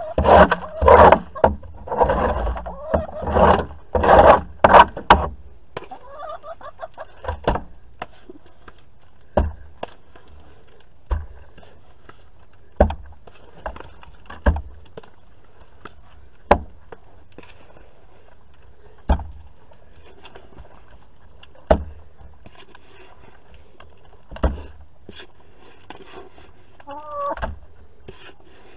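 Chicken feed poured into a metal trough, rattling and scraping loudly for about five seconds. Then hens peck at the feed, striking the trough with sharp single knocks about every two seconds.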